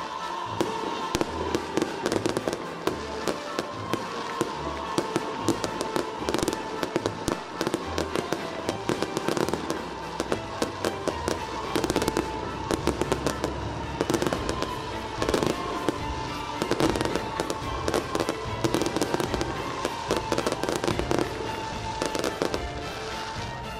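Fireworks and firecrackers going off nonstop, a dense run of sharp cracks and bangs, with music playing underneath.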